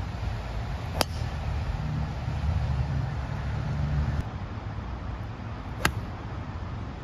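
Two golf shots: a driver striking the ball off the tee with a sharp click about a second in, and an iron striking the ball from the fairway with another sharp click near the end. A steady low rumble runs underneath.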